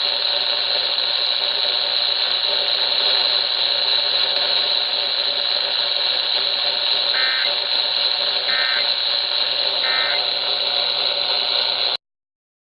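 Steady radio static with a faint hum. About seven seconds in come three short warbling data bursts of the Emergency Alert System end-of-message code, about a second and a half apart, marking the close of the test. The audio cuts off abruptly near the end.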